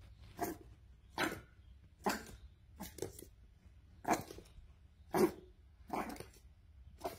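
Boston Terrier puppy barking, about nine short barks roughly one a second.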